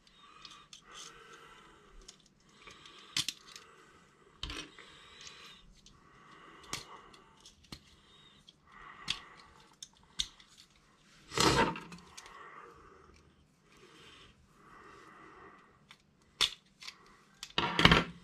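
Small plastic clicks, rattles and rustling as the AAA batteries of a Kyosho Mini-Z RC car are taken out and checked by hand, with two louder clacks, one about eleven seconds in and one near the end.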